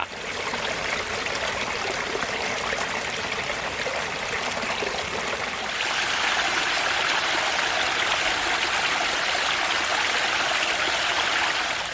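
Small woodland creek flowing, a steady rush of water that grows a little louder about six seconds in.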